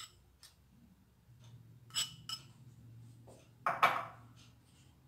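Kitchenware clinking against a glazed earthenware dish as soft butter is added to it: two light clinks about two seconds in, then a louder knock with a short ring just before four seconds.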